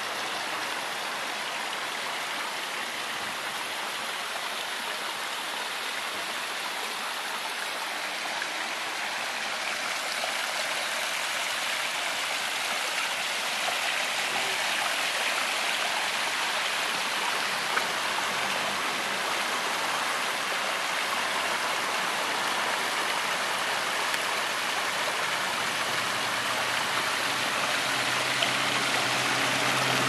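Backyard waterfall and rocky stream: water steadily splashing and running over stones, growing louder. A low engine hum creeps in near the end.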